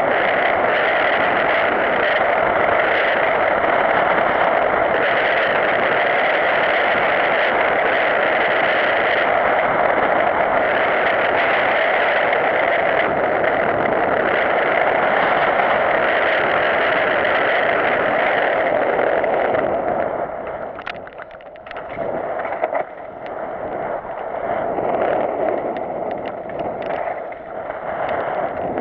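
Mountain bike riding down a leafy dirt singletrack, heard through a GoPro camera: a loud, steady, muffled rush of wind and trail rattle. About twenty seconds in it drops to a quieter, uneven rattle with scattered clicks and knocks, then builds again near the end.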